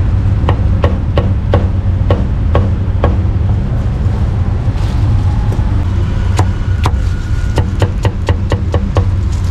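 Meat cleaver chopping on a thick wooden chopping block: separate knocks about every half second at first, a pause around the middle, then a quicker run of three or four cuts a second near the end as cucumber is sliced. A steady low rumble lies underneath.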